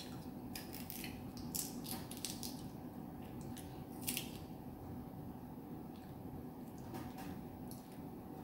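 Faint crackling clicks of a lychee's thin, brittle shell being cracked and peeled off by hand, a scattering of short snaps with a louder one about four seconds in, over a steady faint hum.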